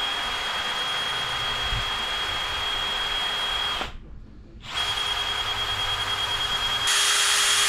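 A power tool spinning a wire brush, with a steady high whine, cleaning carbon off a spark plug. It cuts out about four seconds in, starts again under a second later, and grows louder with a harsher scrubbing hiss near the end.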